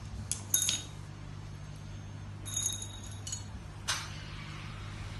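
Small metal and plastic parts clinking and tapping as they are handled and fitted together, a few sharp clinks with a brief metallic ring, over a steady low hum.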